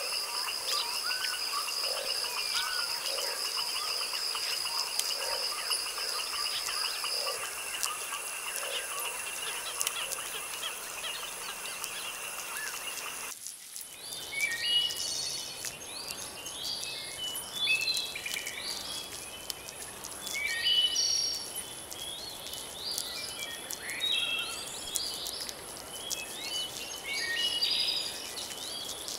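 Nature soundscape: steady high insect trilling with frogs calling for the first half. Then an abrupt switch to a chorus of songbirds singing many short chirping phrases.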